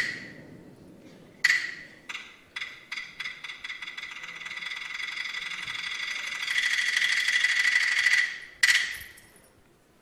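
Peking opera percussion: sharp, high ringing strikes that come faster and faster and merge into a roll. The roll swells and is cut off by one last strike.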